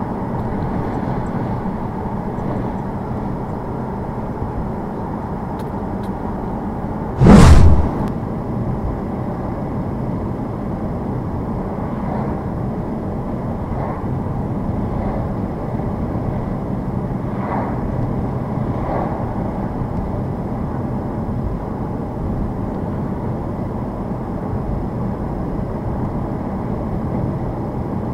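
Steady road and tyre noise of a car driving on a snow-covered road, heard from inside the cabin. A single loud thump about seven seconds in.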